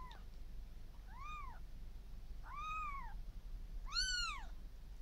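Newborn kitten crying: four short, high mews about a second and a half apart, each rising then falling in pitch, the last one the loudest.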